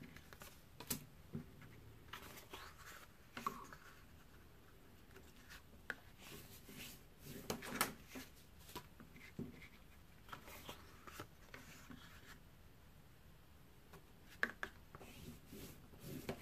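Sheets of printing paper being folded in half and creased with a bone folder on a cutting mat: faint rubbing strokes and paper handling, with scattered light ticks and taps.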